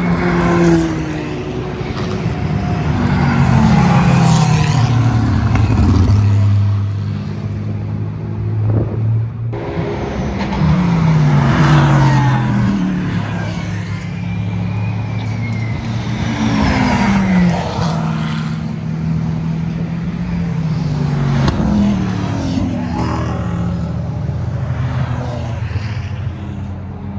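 GT3 and GT4 race car engines at full throttle as several cars pass one after another. Each pass swells and fades, its pitch falling as the car goes by. The sound breaks off abruptly about nine and a half seconds in and picks up again straight away.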